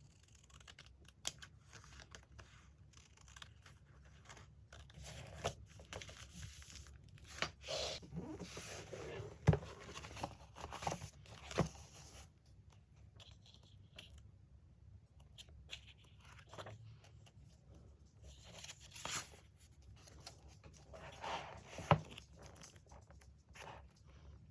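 Magazine paper being torn and handled in a series of short rustling strokes, with a few sharp taps.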